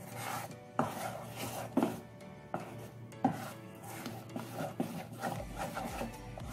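Thick pancake batter being stirred and scraped in a stainless steel bowl, with sharp knocks of the utensil against the bowl about once a second in the first half.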